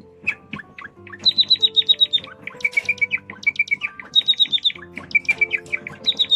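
Java sparrow chirping in quick runs of sharp, high notes, about nine a second, with short breaks between runs, over background music.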